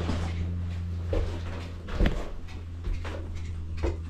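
Steady low machine hum inside a small ice house, with a few soft knocks and clicks of gear being handled on the floor: one about a second in, a sharper one about two seconds in, and another near the end.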